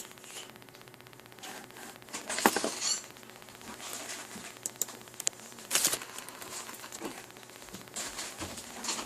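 Scattered small clicks, taps and rustles, with louder scratchy rustles about two and a half seconds in and again near six seconds.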